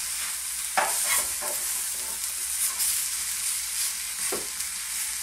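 Spice-coated fish steaks sizzling in a lightly oiled flat frying pan. A metal spatula scrapes and taps against the pan as the pieces are turned, most sharply about a second in and again near the end.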